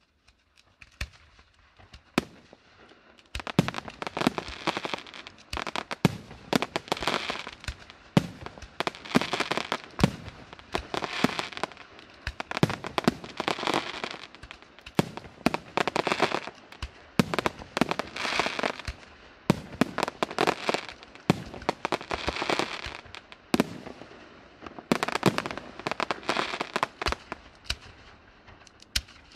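Aerial fireworks shells bursting overhead in a barrage of sharp bangs and dense crackling. It picks up about three seconds in and comes in loud waves roughly every two seconds.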